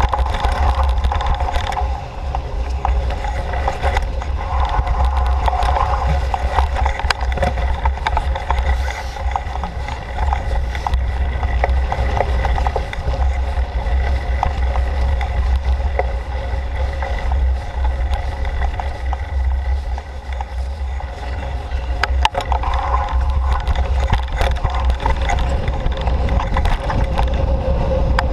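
Bicycle ridden along a rough forest trail: heavy wind rumble on the camera microphone over the hiss of tyres rolling on the path, with frequent small rattles and clicks.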